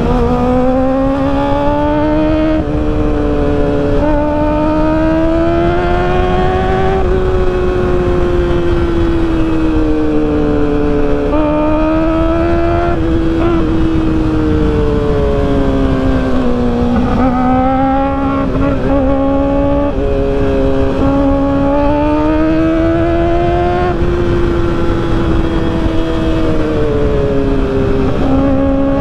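Kawasaki ZX-4RR's 399 cc inline-four engine running at high revs while the bike is ridden hard. Its pitch climbs and drops repeatedly, stepping abruptly several times with gear changes and throttle, over steady wind rush on the microphone.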